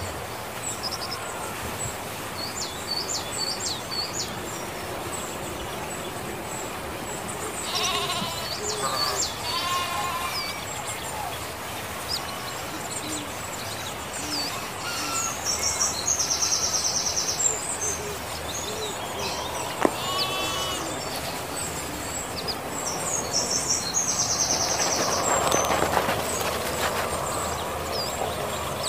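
Sheep bleating now and then, with a few wavering bleats about eight to ten seconds in and again around twenty seconds, over steady bird chirping.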